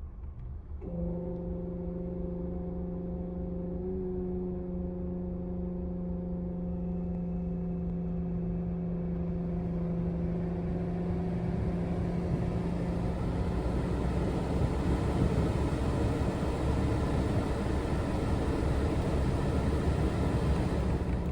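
Suzuki Wagon R air-conditioning compressor making an abnormal hum that starts suddenly about a second in. A rushing noise builds up over it and grows louder through the second half. This is the kind of abnormal noise that goes with a faulty compressor and an AC that doesn't cool.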